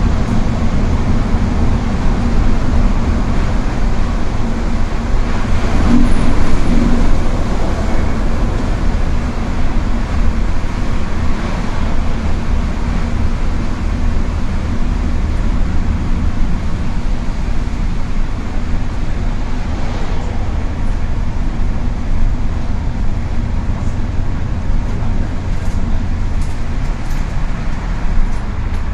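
Steady low rumble of engine and tyre noise inside a moving road vehicle driving on a wet road, briefly louder about six seconds in.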